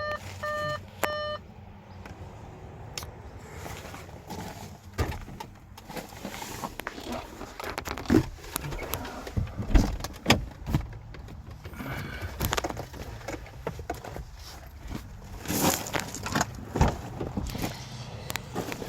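The car's dashboard warning chime beeping in short, evenly repeated tones, stopping about a second in; then irregular clicks, knocks and rattles from handling things inside the car's cabin, with a few sharper knocks scattered through.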